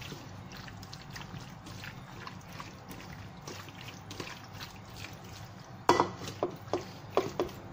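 Cooking oil heating in an aluminium wok on the stove: a steady low hum with scattered faint ticks and crackles. A few sharper clicks and knocks come about six seconds in.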